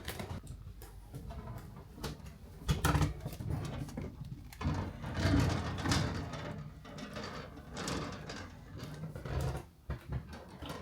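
Irregular handling noises: scattered clicks and knocks with bursts of rustling, as objects are moved about in a small enclosed space.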